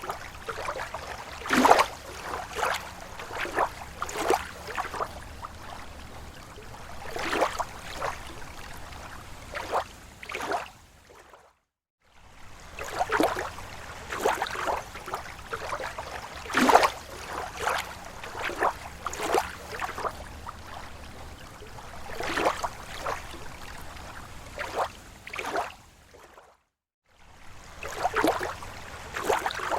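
Small waves lapping against a lake shore: irregular splashes and gurgles, one every second or so. The sound drops out to silence briefly twice.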